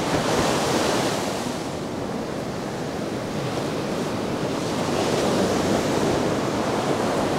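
Ocean surf breaking and washing up a steep sand beach in a steady rush that swells and eases with the waves.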